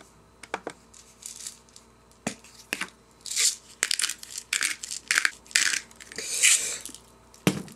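Black pepper grinder twisted by hand, grinding peppercorns in a run of short, irregular crunches after a few light clicks.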